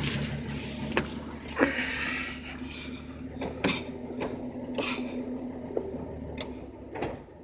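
Ford pickup's engine idling with a steady hum, under a series of short knocks and rustles as someone climbs into the cab; the hum drops away suddenly just before the end.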